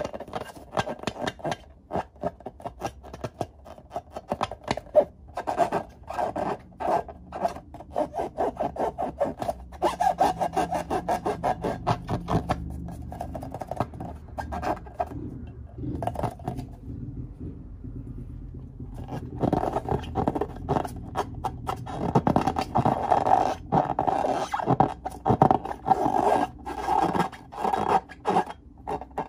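Hands rubbing and squeezing filled rubber balloons: a fast run of scratchy, squeaky rubbing strokes, which falls quiet for a few seconds past the middle and then picks up again.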